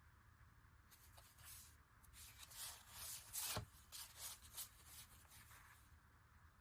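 Faint rustling and crinkling of packaging being handled, in a run of short scrapes with one sharper click about three and a half seconds in.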